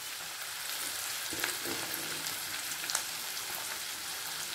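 Hot oil and butter sizzling steadily as chopped vegetables fry in a pan, with a few short sharp crackles.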